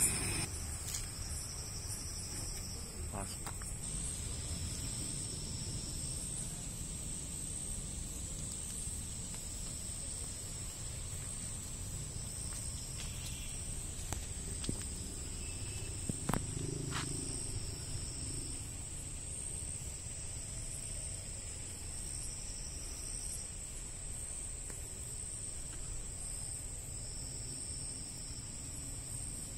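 Night insect chorus: a steady high-pitched trill, with a second, lower trill coming and going in short spells over a low background rumble.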